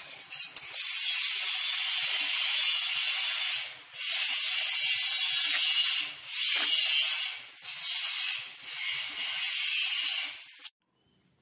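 Noodles and vegetables sizzling in a hot wok as they are stir-fried with a spatula. A loud, steady hiss dips briefly several times and cuts off suddenly near the end.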